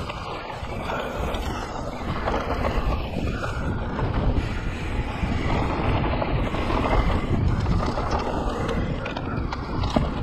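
Mountain bike rolling fast down a dirt singletrack, heard through an action camera's microphone: wind buffeting the mic over the rush and rumble of the tyres on dirt, surging unevenly.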